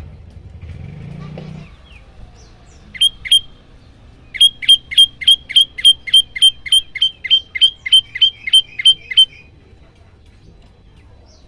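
Common tailorbird calling: two sharp notes, then a fast, evenly spaced run of about seventeen loud, sharp notes at about three a second, lasting about five seconds.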